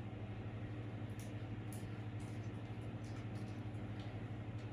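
A steady low electrical hum of room tone, with a few faint soft taps about one, two and four seconds in from a silicone spatula scraping cake batter out of a glass bowl.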